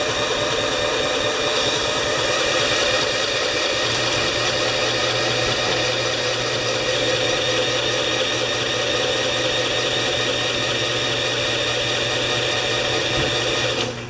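Drill spinning over the Honda HRA214 mower's engine in one long, steady crank that cuts off suddenly near the end, without the engine running on its own; the owner thinks it is flooded.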